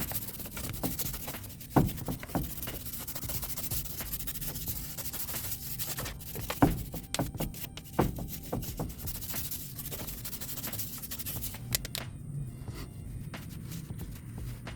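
Wire brush scrubbing grease and dirt off the steering knuckle where the wheel hub mounts: rapid scratching with a few sharp knocks, easing off about twelve seconds in.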